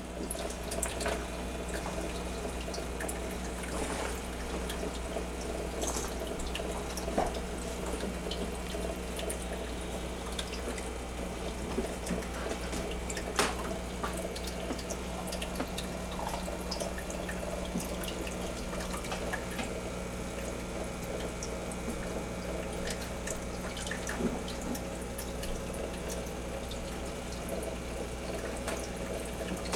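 Aquarium water trickling and dripping steadily over a constant low hum, as from the tank's filter running, with small scattered drip and splash ticks.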